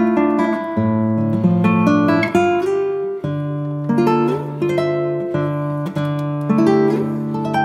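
Background music: acoustic guitar playing plucked notes over held low notes.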